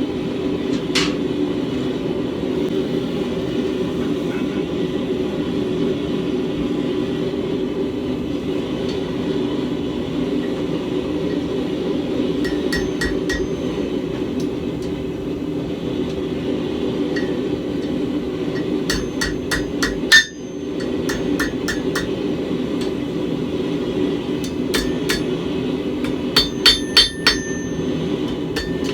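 Hand hammer striking hot steel bar stock on an anvil, bending a hook, in several short runs of quick blows, each with a ringing note from the anvil. The loudest blows come near the end. Under the blows runs a steady low drone.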